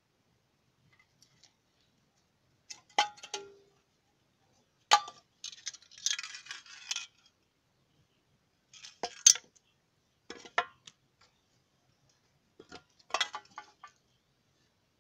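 Metal butane gas cassette canister being handled, giving short clusters of clinks and knocks about five times, with a scraping noise lasting about a second near the middle.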